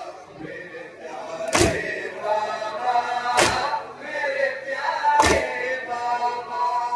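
Men chanting a noha in unison, broken by loud collective chest-beating (matam) strikes about every two seconds.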